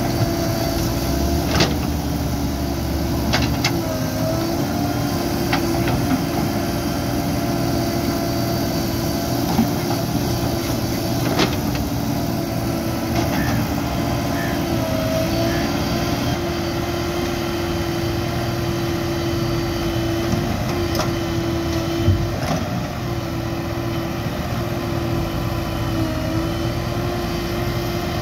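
JCB 3DX backhoe loader's diesel engine running steadily, its pitch sagging briefly under load a few times, with a few sharp knocks.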